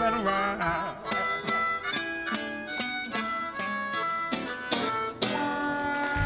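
Chicago blues harmonica playing a run of held and changing notes over a strummed acoustic guitar, with a strummed guitar chord near the end.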